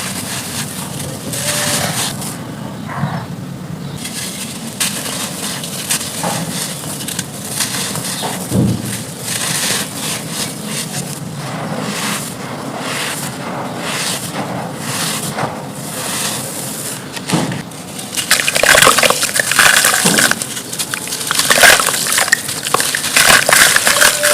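Dry, brittle chunks being crushed and crumbled: a long run of irregular crisp crackles and crunches that grows louder and denser over the last several seconds.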